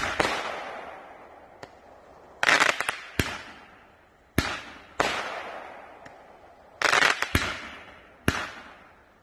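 Roman candles firing, heard as a string of sharp bangs a second or two apart, some in quick clusters. Each bang trails off in a long echo.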